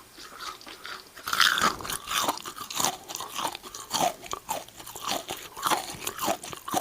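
Close-up chewing of amber sugar candy (kohakutou): crisp, brittle crunches about twice a second, starting about a second in, the first bite the loudest.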